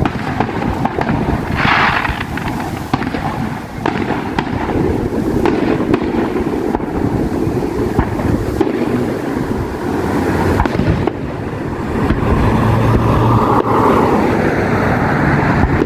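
Fireworks finale: a dense, continuous barrage of bangs and crackles, with wind buffeting the microphone.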